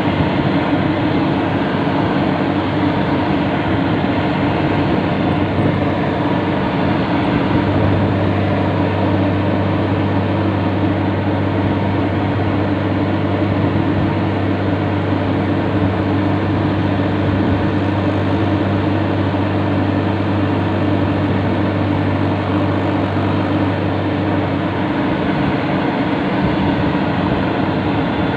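Yanmar YH850 rice combine harvester's diesel engine running steadily while the machine travels. A strong low hum joins in about a quarter of the way in and drops out near the end.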